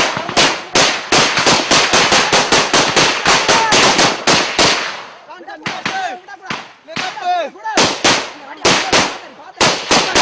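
Bursts of automatic gunfire, several shots a second, in rapid succession. A little past the middle the firing lets up briefly while voices shout, then the bursts start again.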